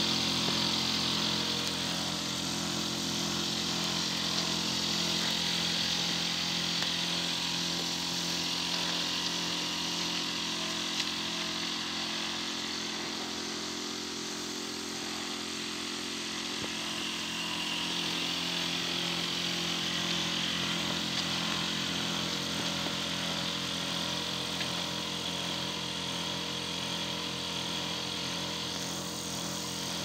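LG Smart Inverter heat pump outdoor unit running: a steady hum with several pitches over an even rush of air from its fan, easing slightly in loudness about halfway through.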